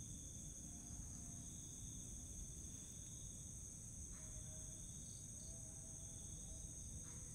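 Night insects chirring steadily at several high pitches over a low rumble of recording noise, with a few faint brief sounds in the middle.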